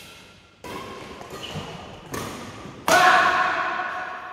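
Badminton rally: about four sharp racket strikes on a shuttlecock, the last the loudest and ringing on in the hall.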